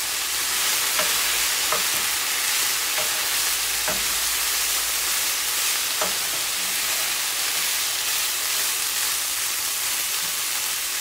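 Ground meat sizzling steadily in oil in a nonstick skillet, stirred with a wooden spoon that knocks against the pan several times. The meat is fried plain, without onion or spices, until dry.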